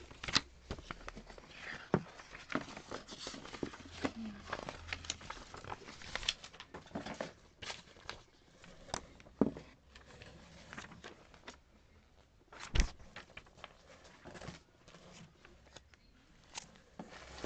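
Paper catalogs and brochures being handled and shuffled: rustling with many short taps and clicks, and one sharper knock near the end.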